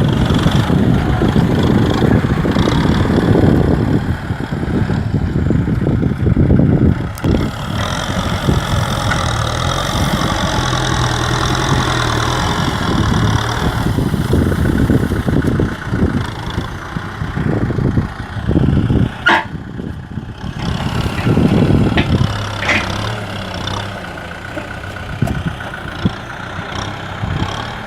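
Kubota M6040 SU tractor's diesel engine running, its pitch and load rising and falling as it works, with a sharp click about two-thirds of the way through.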